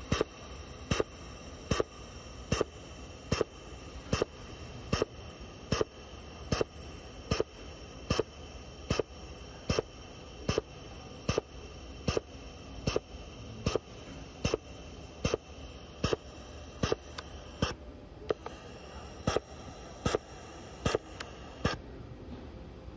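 Hand-held plastic extrusion welder running as it lays a weld bead along the joint of a 3D-printed plastic part: a steady high hiss with a sharp, regular click a little more than once a second. The hiss drops out briefly and then stops near the end.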